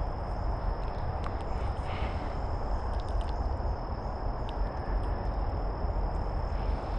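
A steady high-pitched insect drone over a continuous low rumbling noise, with a few faint scattered clicks.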